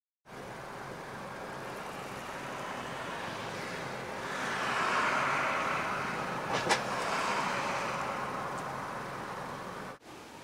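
Rushing noise of a passing vehicle, swelling to a peak about five seconds in and slowly fading, with one sharp click near the loudest point.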